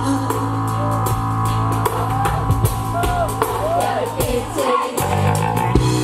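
Live rock band playing an instrumental passage between sung lines: drum kit keeping the beat under guitars and bass.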